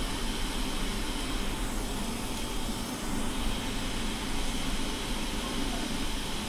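A fan running: steady rushing air noise with a low hum underneath, unchanging throughout.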